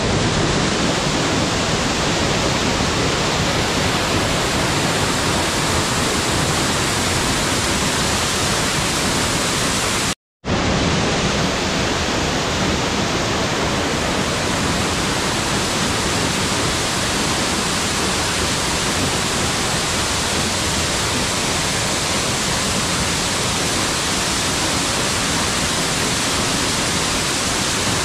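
Waterfall pouring onto rocks: a loud, steady, full rush of water. It cuts out for a split second about ten seconds in.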